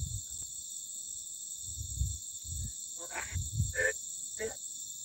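A steady chorus of crickets trilling, with a few dull low thumps now and then.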